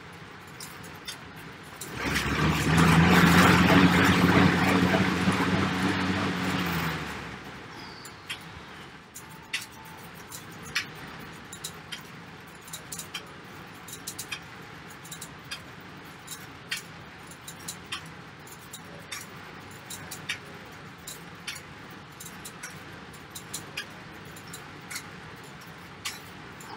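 Fan air bike spun hard in a sprint of about five seconds: a loud whoosh with a steady hum that starts about two seconds in and winds down by about seven seconds. Afterwards only light, irregular jingling clicks.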